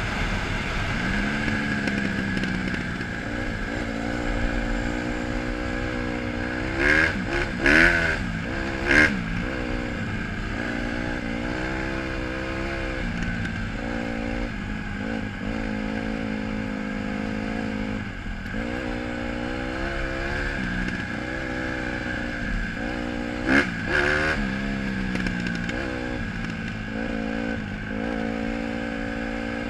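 Honda CRF150R single-cylinder four-stroke dirt bike engine running under way, close to the mic, its pitch climbing and dropping again and again as the throttle opens and shuts through the gears. Three brief loud clattering knocks come about a quarter of the way in, and one more about four-fifths of the way through.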